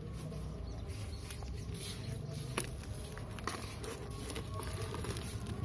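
Scissors snipping and hands tearing and crinkling a plastic mailer bag and the cardboard beneath it, with a few sharp clicks.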